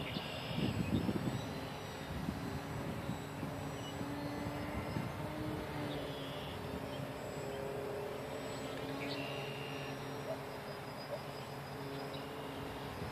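ParkZone Visionaire RC plane's electric motor and propeller humming faintly overhead, its pitch drifting up and down slightly with the throttle. A gust of wind rumbles on the microphone about a second in.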